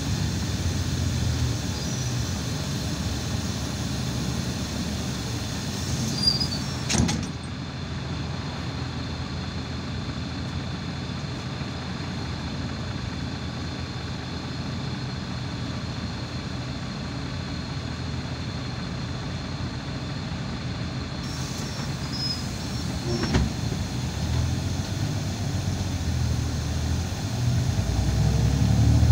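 Irisbus Citelis 12 m city bus, heard from inside: the engine and drive run with a steady low rumble, with a short knock about seven seconds in and another near the three-quarter mark. The rumble grows louder near the end.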